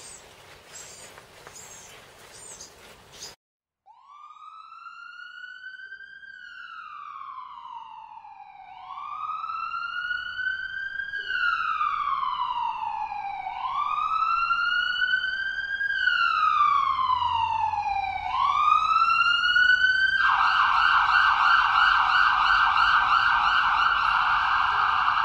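Emergency-vehicle siren in a slow wail, rising and falling about every five seconds and growing louder. About twenty seconds in it switches to a fast yelp. It is preceded by a few seconds of faint clicks and rustling from handling parts.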